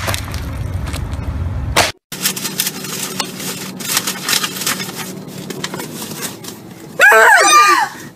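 Steady street traffic rumble with a sharp crack about two seconds in, then quiet rustling and scattered clicks inside a car, ending with a woman's loud, wavering shriek lasting about a second near the end.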